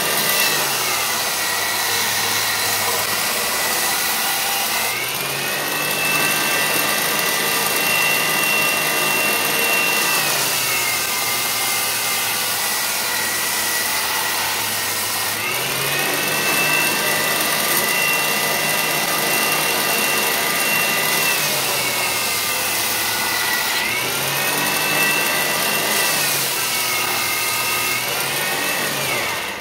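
Compact 2x42 belt grinder driven by a servo motor, running an 80-grit belt while a metal motor faceplate is surfaced flat against it: a steady grinding hiss over the motor's whine. The whine drops in pitch four or five times and rises back again.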